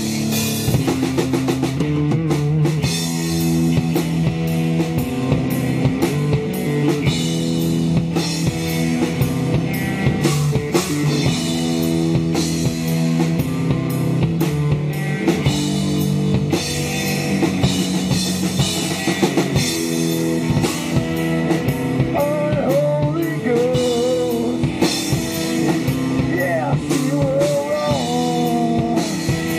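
Live rock band playing: electric guitar over a drum kit, with steady drum hits under sustained guitar notes.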